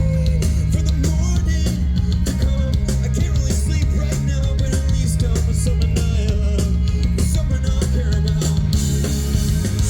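Live rock band playing loud and steady: electric guitars, bass and drum kit, with a heavy bass end. The sound gets brighter near the end.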